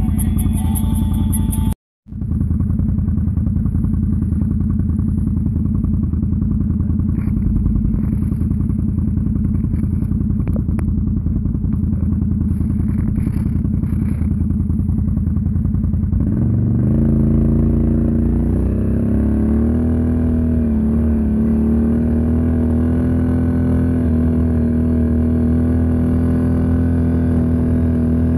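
Can-Am Outlander 650 ATV's V-twin engine running through an aftermarket MBRP muffler: low and steady at crawling speed with a few light knocks, then revving up about two-thirds of the way through and holding a steady higher pitch at speed.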